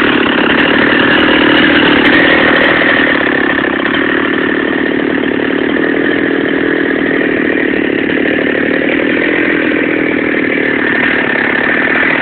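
Two-stroke chainsaw engine running steadily.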